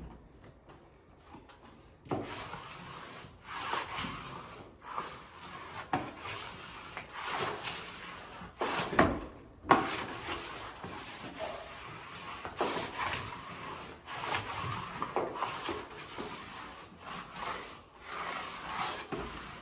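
Repeated rubbing, sweeping strokes over freshly pasted wallpaper, starting about two seconds in and coming irregularly, roughly once a second.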